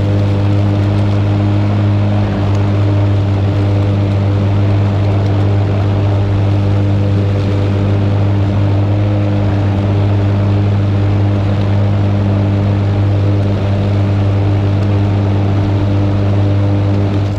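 Lawn mower engine running at a steady speed during mowing, a constant engine drone with no change in pitch.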